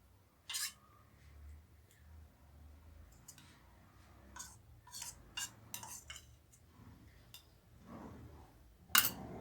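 Light, scattered clicks and clinks of kitchen utensils against a dish while grated ginger is worked for its juice, with one louder clink near the end.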